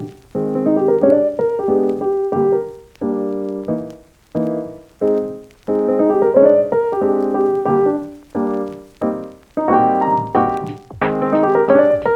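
Background music: a solo piano playing a gentle melody over chords, each note struck and left to fade.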